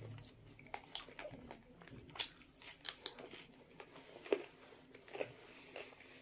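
Close-up eating sounds: chewing, lip smacks and bites into fried chicken, as irregular wet clicks and crunches, the sharpest about two seconds in and again just past four seconds.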